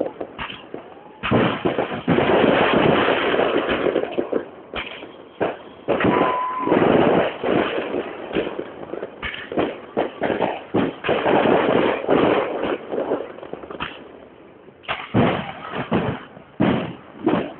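New Year fireworks bursting overhead in rapid succession: a dense run of bangs and crackling, thinning briefly a few seconds in and again near the end before another cluster of bangs.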